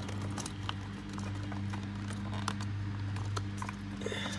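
Scattered small clicks and taps as the ignition switch assembly is handled and fitted back into the steering column, over a steady low hum.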